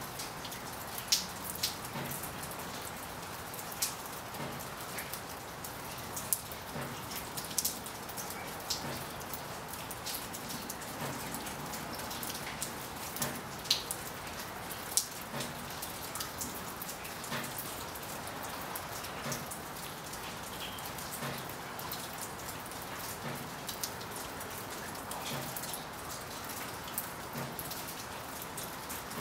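Steady rain: a constant even hiss with many sharp, irregular taps of single drops striking close by.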